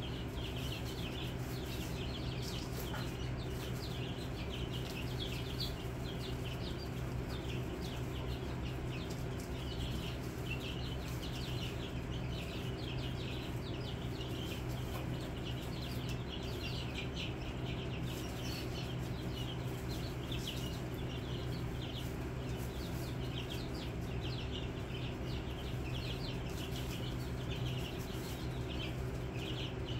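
A flock of chicken chicks peeping continuously, many short high chirps overlapping, over a steady low hum.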